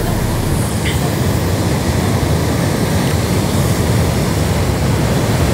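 Heavy surf churning and breaking against a rocky shore: a loud, steady rush of water noise.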